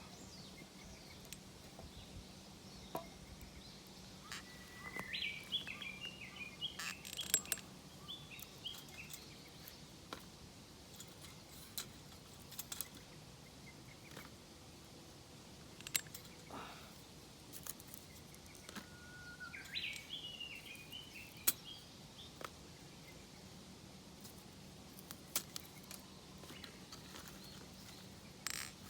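A small bird singing two short phrases of quick chirps, about five seconds in and again around twenty seconds in, over quiet outdoor background noise with scattered sharp clicks.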